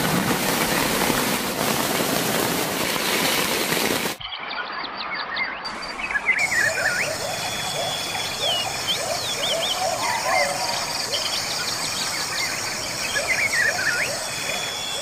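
A steady rushing noise cuts off abruptly about four seconds in. After that, many birds chirp and call with quick falling and rising whistles over a steady high-pitched hum.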